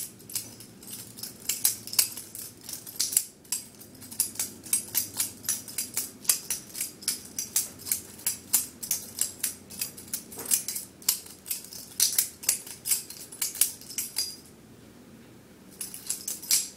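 Butterfly knife (balisong) being flipped: its metal handles and blade clacking and clicking against each other in a quick, irregular rhythm of several clicks a second. The clicking stops for about a second and a half near the end, then a few more clicks follow.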